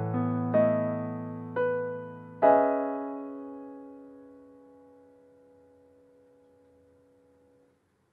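Piano closing a song: a few notes, then a final chord about two and a half seconds in, left to ring and fade slowly, cut off near the end.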